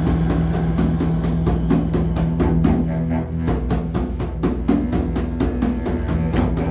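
Didgeridoo drone under a quick, even drumbeat. The drone weakens about halfway through and comes back strongly near the end.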